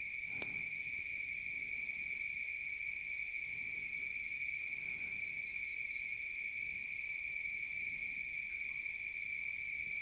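Crickets trilling: one steady high-pitched tone, with fainter pulsing chirps above it.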